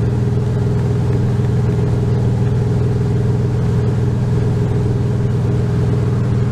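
2001 Ford F150's 4.2-litre V6 running steadily at a constant speed while warming up, on a freshly replaced ignition coil; no misfire is felt.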